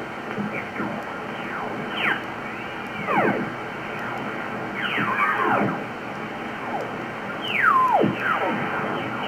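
Receiver audio from an ICOM IC-7700 HF transceiver tuned down across the 80-metre band: a steady hiss of band noise, with a whistling sweep from high to low pitch each time the dial passes over a station, about five times.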